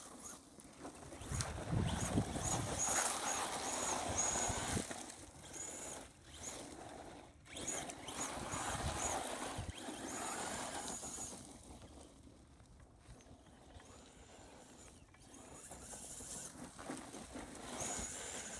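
Traxxas Slash 4x4 RC truck driving and sliding on loose dirt: its motor and tyres scrabbling in the dirt come and go in three louder passes, with short high-pitched tones repeating at one pitch over them.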